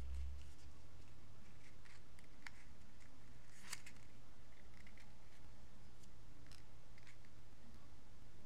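Scattered light rustles and clicks of stiff paper being handled and pressed shut in the hands, the sharpest near the middle, over a steady low hum.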